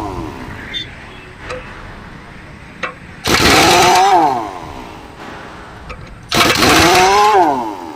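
A machine or power tool revving up and winding down in loud, short bursts, three times about three seconds apart, with a rising then falling whine in each burst.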